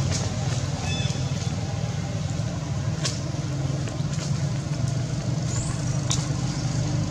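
A steady low motor hum, like an engine running nearby, with a few faint short ticks over it.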